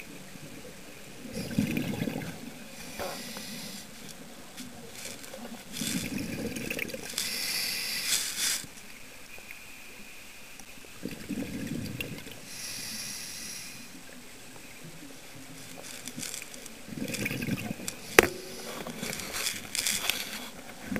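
Scuba diver breathing through a regulator, heard through an underwater camera housing: a hiss on each inhale alternating with a bubbling gurgle on each exhale, about one breath every five seconds, four breaths in all. A single sharp click near the end.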